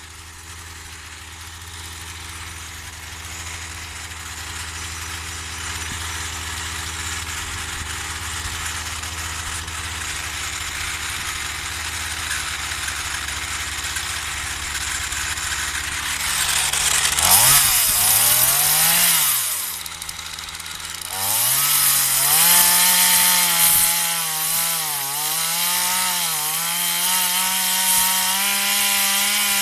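Partner 340S two-stroke chainsaw idling steadily for the first half, then revved to full throttle a little over halfway. After a brief drop it is held at high revs, dipping and recovering as it cuts into wood.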